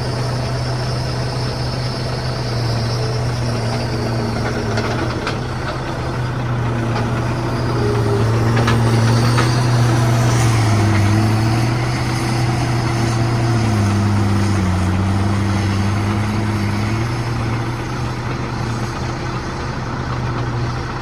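A large vehicle engine running steadily with a strong low hum. Its pitch sags briefly a little past halfway and again a few seconds later.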